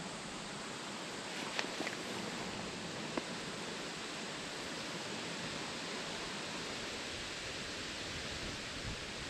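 Steady rushing of flowing creek water, with a few light clicks about one and a half to three seconds in as the spinning reel is handled.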